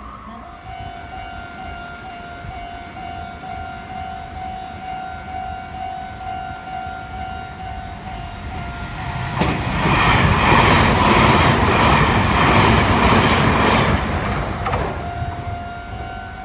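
Meitetsu limited express electric train passing through a station at speed without stopping, a loud rush of wheels and running noise lasting about five seconds from roughly nine seconds in. Before and after the pass, a steady repeating electronic ding sounds.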